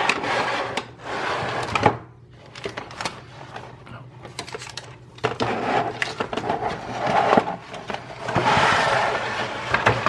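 Packaging being handled and rustled, with light knocks and clicks, in two stretches with a quieter gap about two to five seconds in.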